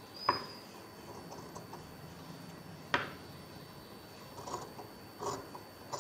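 Large fabric shears cutting through cotton cloth: two sharp snips of the blades closing, a few seconds apart, then a few softer snips and cloth rustles near the end.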